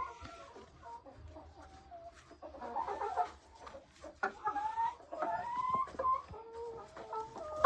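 Domestic hens clucking, a run of short drawn-out calls that come and go, with a sharp knock right at the end.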